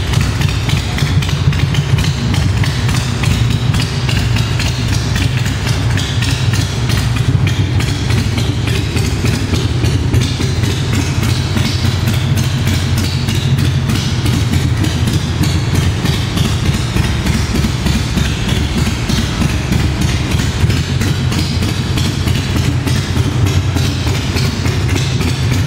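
2004 Big Dog Mastiff's V-twin engine idling steadily through heat-wrapped exhaust pipes, a fast, even pulsing beat.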